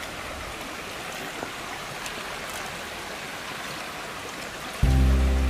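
Shallow rocky stream running, a steady rush of water over stone. Loud music with sustained low notes cuts in suddenly near the end.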